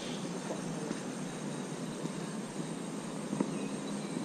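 Steady rushing noise of a flowing stream, even throughout with no distinct events.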